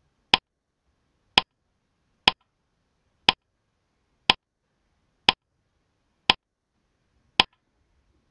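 Countdown timer sound effect: one sharp tick each second, eight ticks in all, with silence between them.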